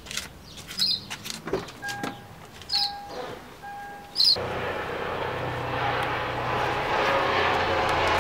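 Three short electronic chime beeps, then about four seconds in a car's engine starts suddenly and runs steadily, its drone slowly building; the car is a Lexus IS300 with a 3.0-litre inline-six.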